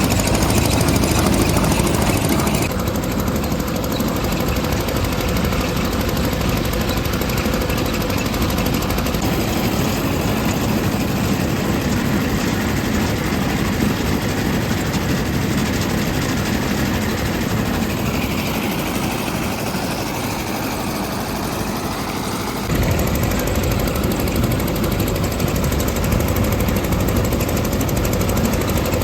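Heavy road-repair machinery running loudly and without a break. Its deep rumble thins out for a few seconds near the end, then comes back suddenly.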